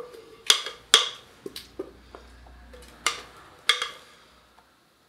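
About five sharp knocks of a spatula against a glass mixing bowl, with the bowl knocking on a metal loaf tin, as cake batter is scraped out into the tin. Two come close together in the first second, then a lighter one, then two more about three to four seconds in.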